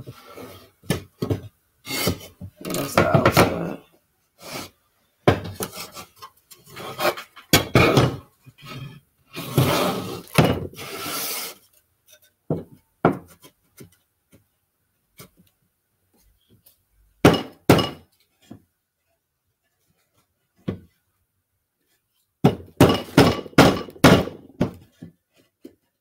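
Mallet blows knocking pine beehive-box panels together at their finger joints, in bursts of quick knocks with pauses between. A last flurry of knocks comes near the end.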